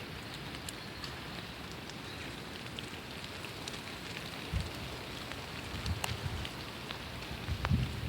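Steady rain falling on a surface, a dense hiss with scattered sharper drops, and low rumbles swelling a few times, strongest near the end.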